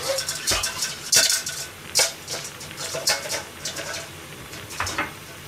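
Squid simmering at a boil in an aluminium yukihira pan under a perforated metal drop lid: the broth bubbles up around the lid with irregular pops and light metallic clicks.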